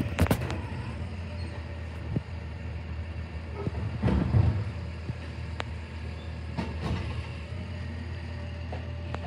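Automated side-loading garbage truck idling steadily while its lift arm dumps a wheeled trash cart: bangs as the cart is shaken out at the top right at the start, and a cluster of clunks about four seconds in as the arm lowers the cart and sets it on the ground, with a few scattered clanks after.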